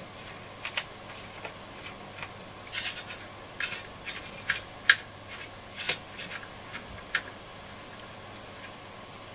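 Irregular light clicks and small metallic clinks as small tools and radio parts are handled, with a busier cluster between about three and six seconds in.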